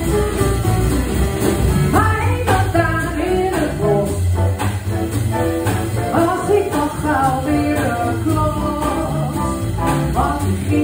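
Live band of piano, double bass and drum kit playing, with a woman's voice coming in about two seconds in and singing over it.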